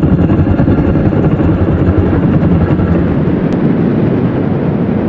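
Destoroyah kaiju sound effect: a loud, rough, continuous rumble that begins to fade near the end.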